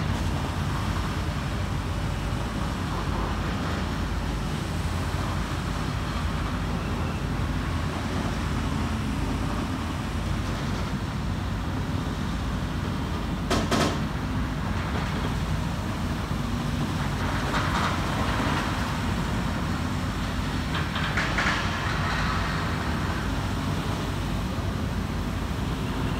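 Heavy demolition excavators running with a steady low rumble as a steel-framed factory is pulled down. There is one sharp bang about halfway through and two louder spells of clatter later on.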